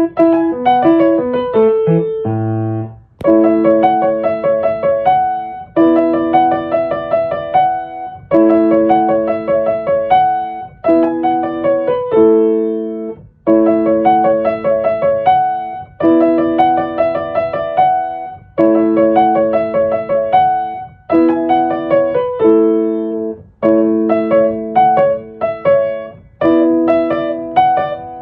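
Solo piano music playing a repeating pattern of chords with notes broken above them, the phrase starting over about every two and a half seconds.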